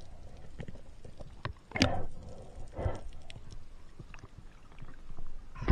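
Underwater water noise around the camera: muffled water movement and bubbling with small clicks, and two short surges of rushing water about two and three seconds in.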